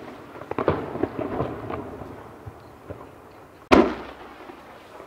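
Aerial firework shells bursting: a scatter of sharp bangs and crackles in the first two seconds, then one loud boom a little under four seconds in that echoes as it dies away.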